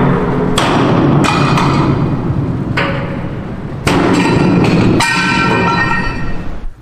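Hammer blows on a steel support block under a ship's hull: about six heavy strikes at uneven spacing, each ringing briefly like struck metal.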